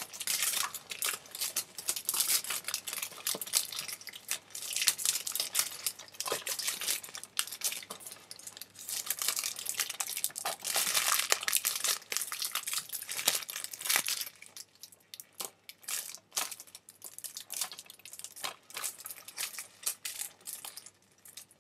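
Clear plastic shrink wrap being peeled and torn off a Blu-ray case, crinkling and crackling densely for about fourteen seconds, then thinning to scattered crinkles and clicks. The wrap is stubborn, a pain to get off.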